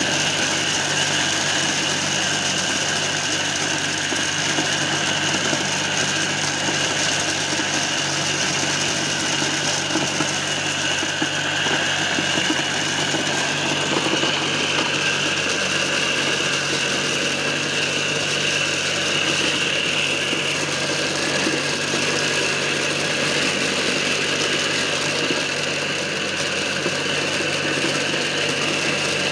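Homemade mini corn sheller, driven by a reused water-pump electric motor through a V-belt, running steadily with a hum and a high whine as corn cobs are fed in and shelled.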